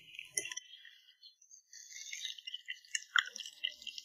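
Raw eggs beaten with chopsticks in a porcelain bowl: a fast, light clicking and rattling of the sticks against the bowl that starts about two seconds in, after a single click as an egg is broken open.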